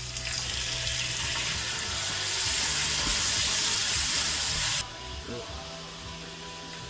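Water running from a kitchen tap, growing louder, then cutting off suddenly about five seconds in.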